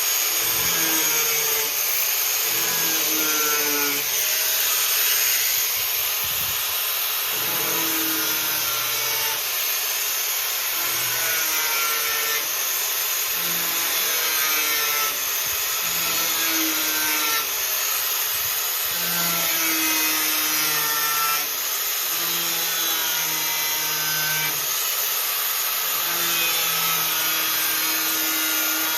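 Angle grinder cutting through a car's sheet-steel floor: a steady, hissing cut with the motor's whine dipping and recovering as the disc bites.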